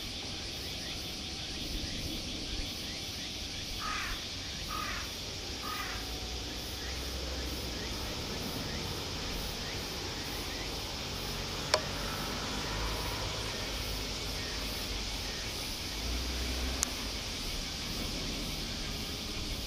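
A crow cawing three times a few seconds in, over a steady high drone of insects and a low rumble. A single sharp knock sounds about twelve seconds in, and a fainter one a few seconds later.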